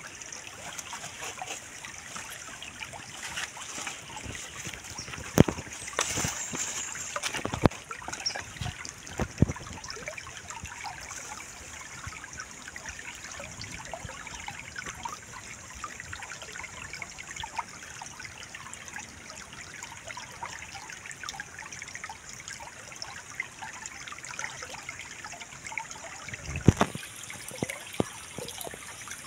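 Shallow rocky stream trickling steadily, with a few sharp knocks between about five and ten seconds in and another near the end.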